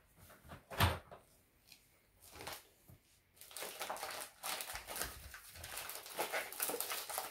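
Wrapping paper crinkling and tearing as a small, taped-up present is unwrapped by hand, in dense rustles through the second half. There is a single knock about a second in.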